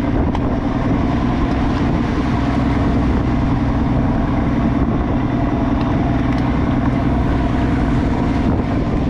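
A crab fishing boat's engine running steadily, with an unchanging low hum.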